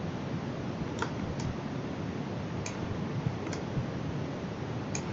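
Computer mouse clicking five times at irregular intervals over a steady background hiss.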